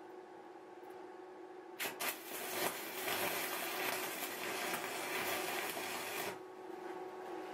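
Electric arc welding: the arc strikes with a couple of sharp cracks about two seconds in, then crackles and sizzles steadily for about four seconds before cutting off suddenly, over a steady hum.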